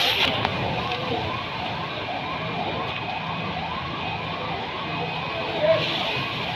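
Emergency vehicle siren wailing in a fast, repeating rise and fall, about two cycles a second, steady throughout, over a background hiss.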